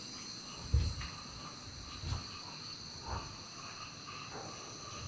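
Crickets chirring steadily in a high, continuous drone. A few soft low thumps come through, the first, about a second in, being the loudest.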